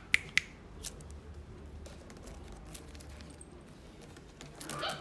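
Toy poodle puppy giving a short bark near the end, after a couple of sharp clicks at the start and faint scattered ticks.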